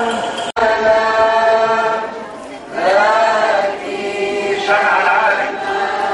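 A crowd of people singing a hymn together, with long held notes. The singing cuts out for an instant about half a second in, then carries on.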